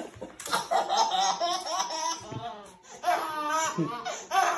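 A baby laughing in high-pitched giggles, in two long runs with a short pause just before the three-second mark.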